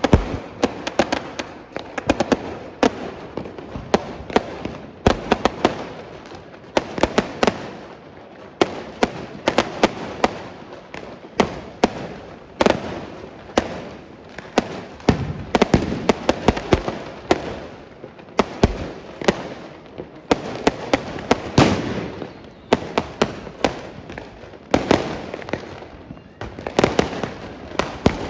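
Firecrackers going off: many sharp bangs in rapid, irregular clusters with short gaps between them.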